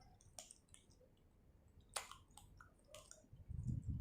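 Faint eating sounds: wet chewing and small mouth clicks from a person eating seafood papaya salad, with a sharper click about two seconds in and a low rumble near the end.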